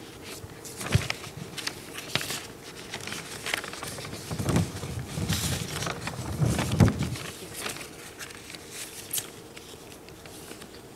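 Paper pages rustling and a handheld microphone being handled, giving irregular clicks, rustles and low thumps that are busiest in the middle. A faint steady hum runs underneath.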